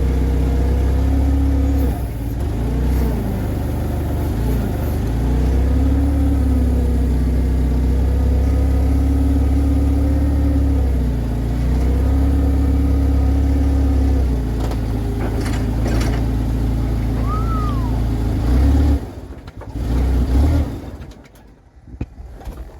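Propane forklift engine running under load, its speed dipping and recovering a few times, then sputtering out near the end. It catches briefly once more before it dies: the forklift has run out of propane.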